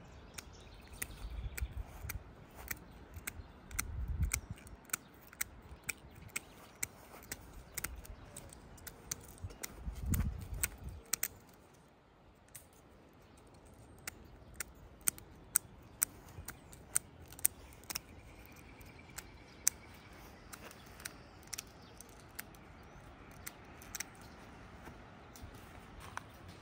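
Shears snipping thin plastic bird netting and zip-tie ends: a long, irregular run of sharp clicks, often more than one a second, pausing briefly about twelve seconds in. A few low rumbles from handling come near the start and about ten seconds in.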